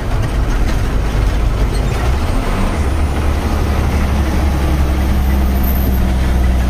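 Tata 3118 twelve-wheel truck's diesel engine running steadily under way with road noise, heard from inside the cab. The low drone firms up and grows stronger about two and a half seconds in.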